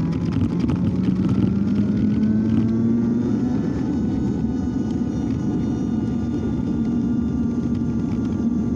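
Super Soco TC Max electric motorcycle's hub motor whining. Its pitch rises over the first few seconds as it speeds up, then holds steady over a continuous low rush.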